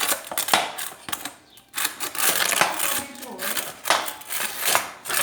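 Irregular clattering and clinking of small hard objects being moved and handled, with rustling in between.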